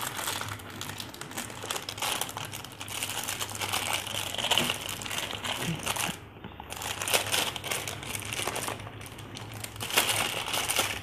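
Clear plastic wrapping crinkling and crackling irregularly as hands work to open it, with a short pause about six seconds in.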